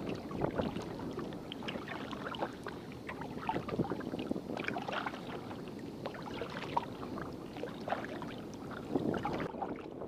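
A kayak paddle dipping and pulling through lake water stroke after stroke, giving a steady patter of small splashes and drips.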